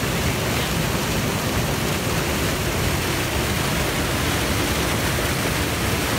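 Loud, steady rush of falling water, an even noise with no pitch or rhythm.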